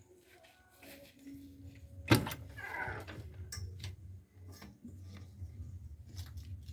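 Heavy diesel machinery running with a steady low rumble, with a sharp bang about two seconds in followed by about a second of rattling, then scattered clicks and knocks.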